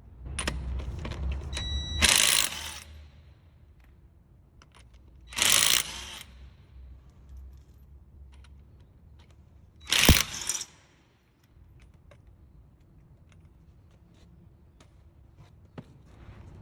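Impact wrench hammering lug nuts loose in three short bursts, about 2, 5.5 and 10 seconds in, with a brief whine just before the first burst.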